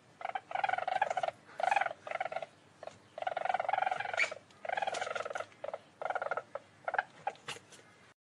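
Least weasel calling: a string of about ten short bursts of rapid trilling calls, each lasting from a fraction of a second to about a second, with brief gaps between them.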